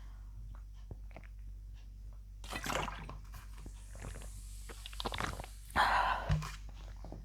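A person drinking fizzy soda straight from a bottle: small swallowing clicks and gulps, a short breathy burst about two and a half seconds in, and a louder breathy burst near six seconds.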